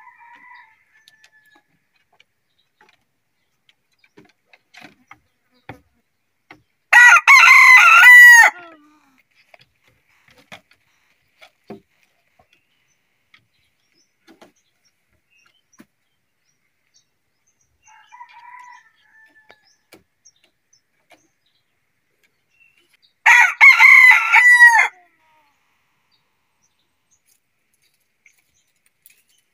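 Rooster crowing loudly close by, twice, about sixteen seconds apart, each crow lasting under two seconds. Faint short calls come between the crows.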